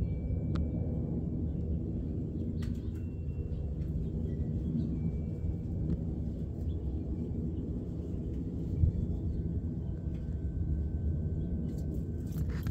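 Steady low outdoor rumble, with a few faint clicks and some brief, faint high thin tones over it.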